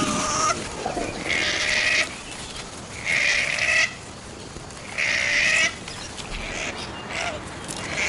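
Koala screaming during a fight between two male koalas: three loud cries, each under a second long and about two seconds apart, after a shorter call at the start.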